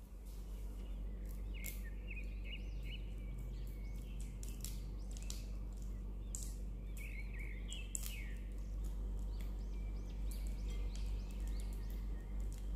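Silicone spatula mashing and creaming softened butter in a glass bowl, with irregular short scrapes against the glass, over a steady low hum. Birds chirp repeatedly in the background.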